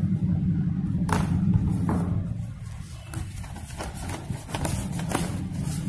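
A sheet of paper being picked up and handled, giving short rustles and crinkles over a steady low hum.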